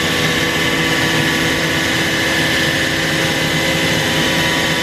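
CNC router running steadily during the milling of a wooden guitar neck: a continuous high whine over a steady hum and rushing noise.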